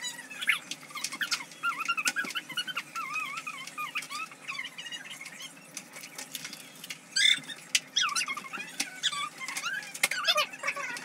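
Crinkling and crackling of small taffy wrappers being peeled off by hand, over a run of short, high, wavering squeaks.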